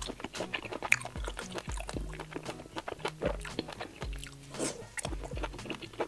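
Close-miked chewing of a cheese-filled sausage, many small wet clicks and crunches, over background music.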